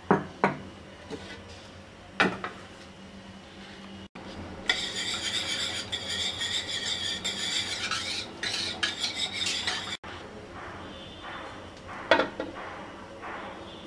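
A metal spoon stirring flour into pancake batter in a bowl: a few sharp clinks against the bowl, and a stretch of fast, busy scraping in the middle.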